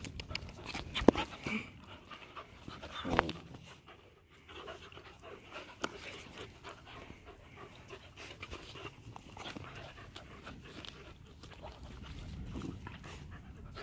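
A dog panting close by, with a few brief sharp knocks about one and three seconds in.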